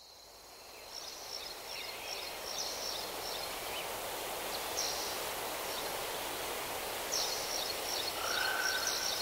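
Outdoor ambience fading in: a steady hiss with many quick, high chirping calls throughout, and a steady buzzing call about a second long near the end.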